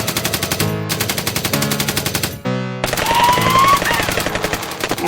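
Rapid rattling fire like a machine-gun sound effect, about ten shots a second, over music; it breaks off about two and a half seconds in and resumes with gliding tones over it.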